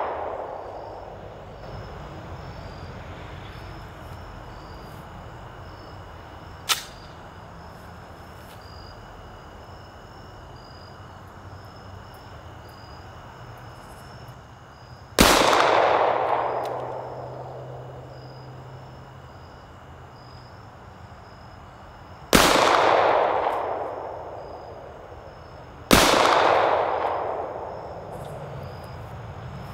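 Three shots from a SIG Sauer P220 .45 ACP pistol, the first about halfway in and the last two about three and a half seconds apart, each followed by a long echo that dies away over a couple of seconds. A single sharp click comes about a quarter of the way in.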